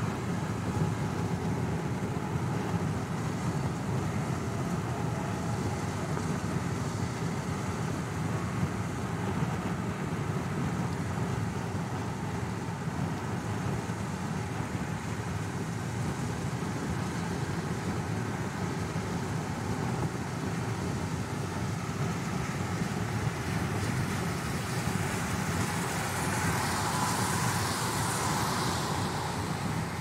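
Steady road noise of a car driving, a low, even rumble of tyres and engine. Near the end a higher rushing sound swells and fades.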